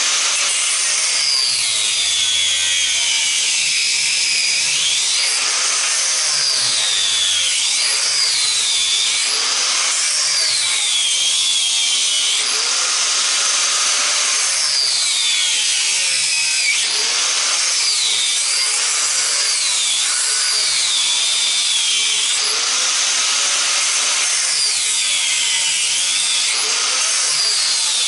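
Angle grinder with a worn cut-off disc cutting through an electric motor's copper windings. It runs continuously, its high whine dropping as the disc bites and climbing back again every few seconds.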